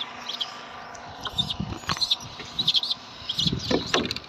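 Small birds chirping in short, high, repeated calls, with a few soft knocks near the middle and toward the end.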